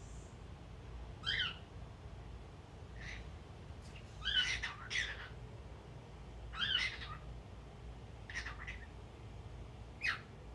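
Male cockatiel calling in short, chirpy warbling phrases, about six calls spaced a second or two apart, with the loudest double call a little over four seconds in.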